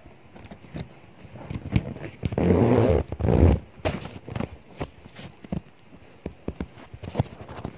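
Fabric bag handled close to the microphone and zipped shut: scattered rustles and clicks, with two loud rasping strokes about two and a half to three and a half seconds in.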